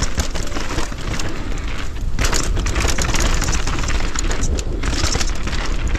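Mountain bike descending a rough dirt trail at speed: tyres crunching over loose dirt, rocks and roots, with constant rattling and knocking from the bike over the bumps and wind rush on the camera's microphone.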